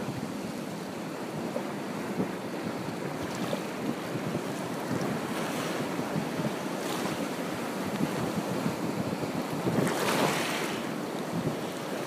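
Surf washing onto a beach, with wind blowing on the microphone; a wave breaks and hisses up the shore about ten seconds in.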